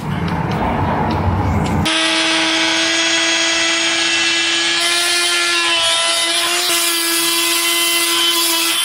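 A corded oscillating multi-tool cuts through a plywood board with a steady, high-pitched buzz. It starts abruptly about two seconds in, after a low rumbling noise.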